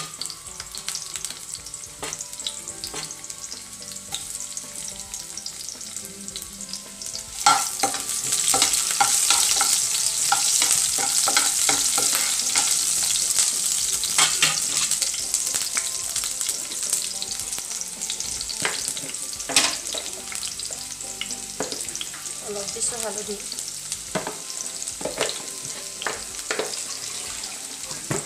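Sliced onions sizzling in hot oil in a frying pan, with a spatula clicking and scraping against the pan as they are stirred. The sizzle gets louder about seven seconds in.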